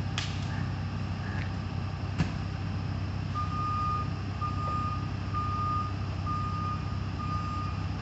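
A heavy truck's engine runs steadily, with a single sharp knock about two seconds in. About three seconds in, a truck's back-up alarm starts beeping, about one beep a second.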